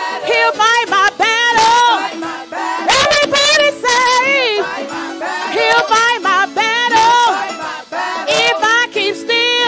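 Women's gospel choir singing live into microphones. A lead voice with wide vibrato carries over the group.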